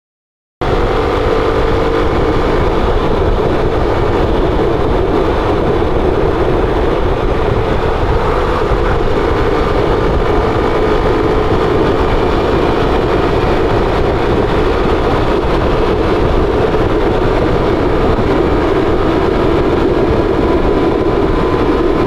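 Suzuki Raider 150 motorcycle riding at a steady speed, its engine holding steady revs under a low rumble of wind on the mic; the sound cuts in abruptly about half a second in.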